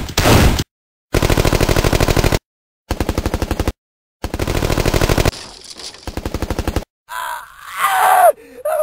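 Machine-gun sound effects: three bursts of rapid automatic fire at about ten shots a second, each cut off abruptly. Near the end comes a man's pained cry that falls in pitch.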